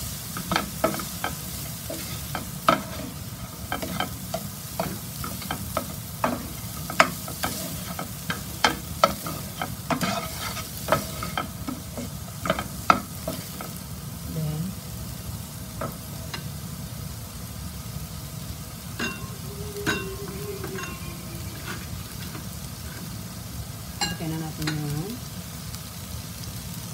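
Diced carrots, peas and onion sizzling in a nonstick frying pan while a wooden spoon stirs them, clicking and tapping against the pan. The clicks come thick and fast in the first half and grow sparse later.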